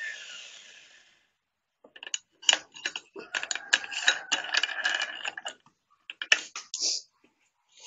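A power tool, the angle grinder, winds down with falling pitch and fades out in the first second. After a short pause comes a run of sharp, irregular clicks and rattles of hard objects being handled, which is the loudest part.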